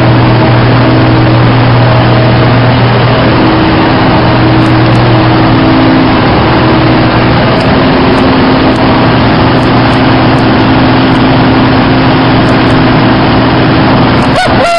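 Aircraft ground power unit running steadily, a loud even engine drone with a constant hum, supplying electrical power to Concorde.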